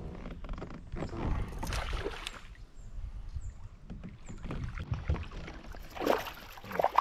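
Water splashing and sloshing against a kayak hull, with irregular knocks, as a hooked smallmouth bass is fought beside the kayak and swung aboard.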